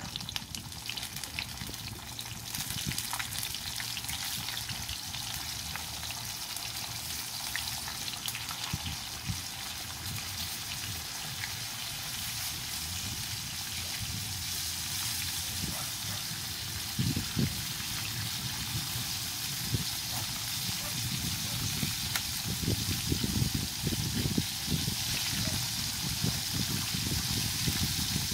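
Small mojarra fish frying in a pan of hot oil over a wood fire: a steady sizzle with scattered crackles, growing somewhat louder toward the end.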